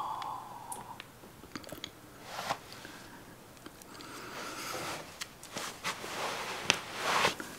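Soft breaths as a joint is drawn on and smoke blown out, a few quiet breathy swells with small mouth clicks and light rustling of bedsheets.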